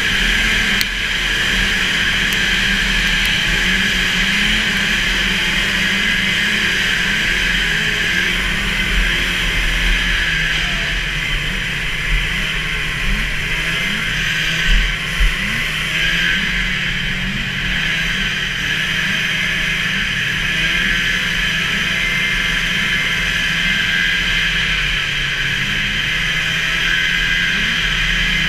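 Racing snowmobile's 440 two-stroke engine running hard at high revs, heard from on board the sled, its pitch wavering a little through the turns. A few short thumps about halfway through.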